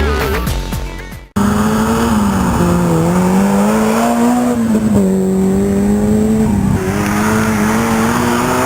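Electronic music fading and then cutting off about a second in. Then an off-road 4x4's engine runs hard at high revs, its pitch rising and falling as the throttle changes.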